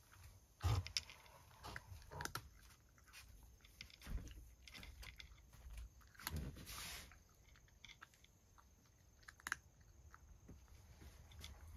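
A cat chewing and crunching food from a wooden tray in irregular bites, the loudest about a second in.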